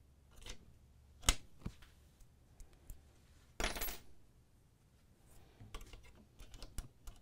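Small metallic clicks and rattles as a jigsaw blade is changed on a DeWalt cordless jigsaw: the blade clamp worked and a steel blade handled. One sharp click comes about a second in, and a brief scraping rattle a little past halfway.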